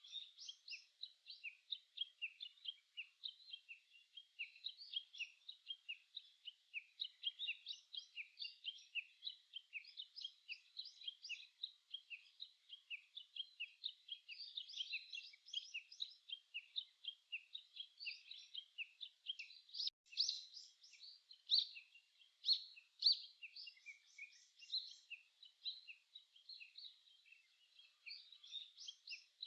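Birds singing: a dense chorus of many short, high chirps and song phrases from several birds overlapping without a break, a few notes louder about two-thirds of the way through.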